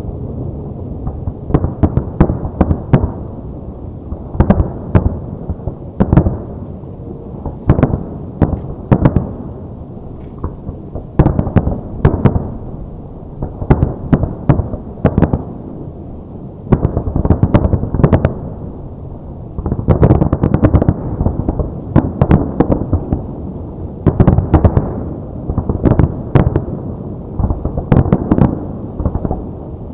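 Aerial fireworks shells bursting in rapid, irregular volleys, many sharp bangs a second at times. A low rolling rumble of echoes fills the gaps, and the densest barrages come about two-thirds of the way through.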